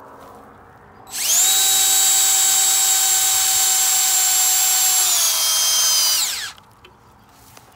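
DeWalt 20V XR cordless drill driving a large structural screw into a 2x4, starting about a second in with a loud steady whine. The pitch drops near the end as the screw seats and the drill slows under load, then it stops.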